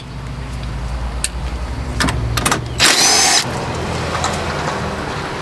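A power tool runs in one short burst about three seconds in, over a steady low engine-like hum.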